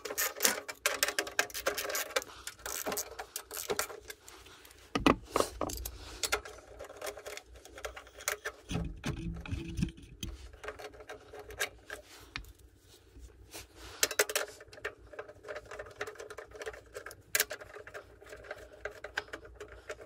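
Socket ratchet clicking in quick runs as bolts are backed out of a snowblower's engine shroud, with knocks and rattles of the tool and metal parts in between.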